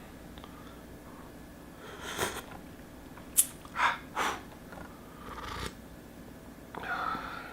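A person making several short, breathy sniffs and snorts, with a sharp click about three and a half seconds in.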